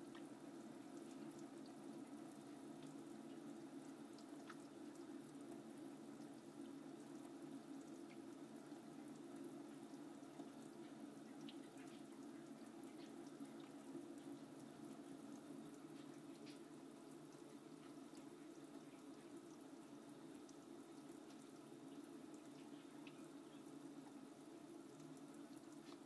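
Faint, steady running water from a kitchen tap falling into a stainless steel sink, with a few small drip-like ticks.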